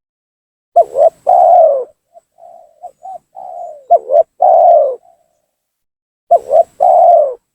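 Spotted dove (tekukur) cooing loudly in three phrases. Each phrase is a couple of short notes followed by a longer, drawn-out coo, and the middle phrase opens with softer notes. This is the male's lively song, used as a lure call to provoke rival doves.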